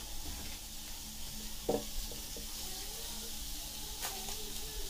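Onion slices sizzling on a hot electric grill plate with a steady hiss, and a soft thump about two seconds in as a slice is set down on the plate.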